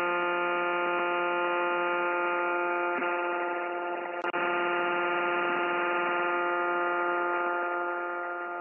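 Steady drone of the Beech Travel Air's twin piston engines and propellers, heard through the cockpit headset intercom as a stack of unchanging tones. It drops out for a moment about four seconds in and fades near the end.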